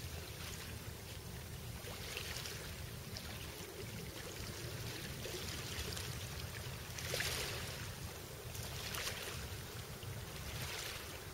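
Small waves washing in on a pebble beach, several hissing swells, the loudest about seven seconds in, over a steady low rumble of wind on the microphone.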